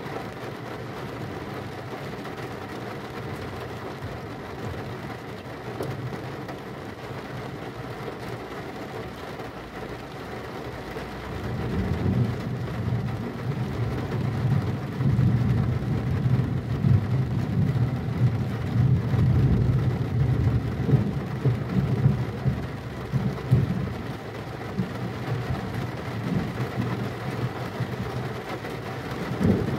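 Steady rain with a long, low rumble of thunder rolling in about a third of the way through, swelling and churning for around ten seconds before easing off, and another rumble starting near the end.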